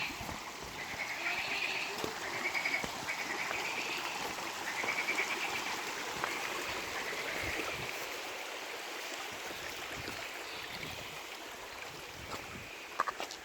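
Frogs croaking in repeated pulsed calls, most active in the first half and fading later, over a steady hiss of running water. A couple of sharp clicks sound near the end.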